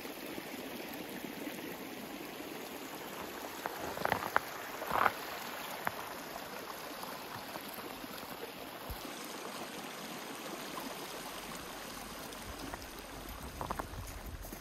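Hot-spring water running steadily along a shallow channel, a continuous rushing hiss, with a few brief louder sounds about four and five seconds in.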